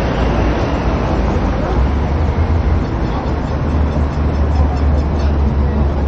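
Busy outdoor city ambience: a steady, loud low rumble under a dense wash of noise and indistinct voices.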